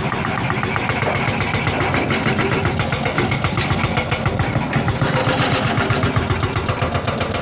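An engine running steadily and loudly with a fast, even pulse.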